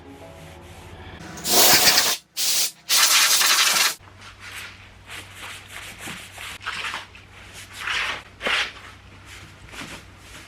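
Hand work on a car body panel during filler repair, heard as rubbing and scraping strokes. It starts with three loud rushing strokes, then goes on as a run of lighter, uneven rubbing strokes.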